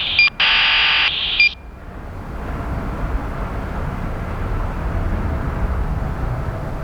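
An air-traffic-control radio channel keyed open without words, with a steady tone and short beeps, cutting off about a second and a half in. A jet airliner's engine rumble then builds and holds steady.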